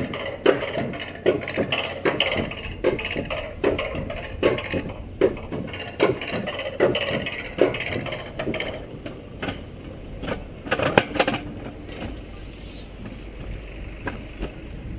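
Alpine coaster sled running on its tubular steel track, with regular knocking clatter about two times a second. A few louder knocks come near eleven seconds, and the clatter then gives way to a steadier low rolling rumble.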